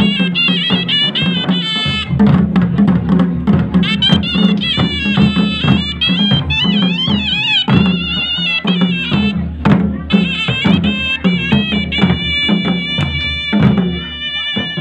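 Himachali folk music for a nati dance: drums beating a steady rhythm under a high, wavering wind-instrument melody.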